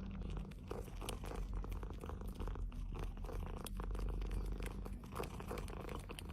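A cat purring close to the microphone: a steady low rumble with many small clicks over it.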